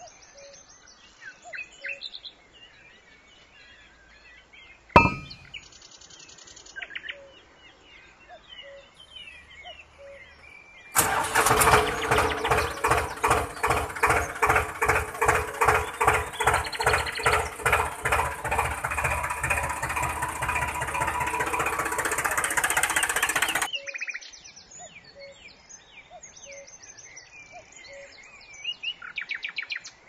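Birds chirping, with a sharp click about five seconds in. About eleven seconds in, a loud, engine-like sound comes in, pulsing in a steady rhythm; it lasts about thirteen seconds, cuts off suddenly, and the bird chirps return.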